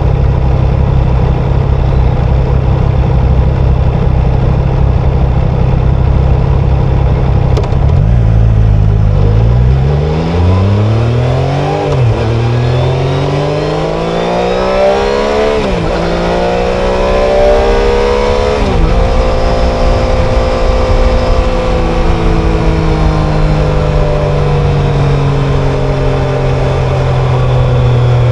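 Triumph Tiger Sport 660's three-cylinder engine and exhaust running steadily at low revs. About eight seconds in it accelerates, the pitch climbing and dropping sharply at each of three quick upshifts, then it holds and slowly eases back down.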